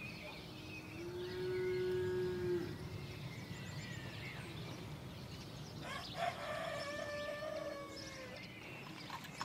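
Farmyard ambience: a cow moos once about a second in, and a rooster crows near the end, over faint bird chirps.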